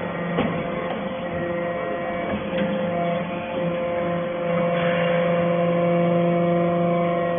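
Hydraulic briquetting press for iron chips running, with a steady hum from its hydraulic pump and motor. A couple of light knocks come from the press in the first few seconds.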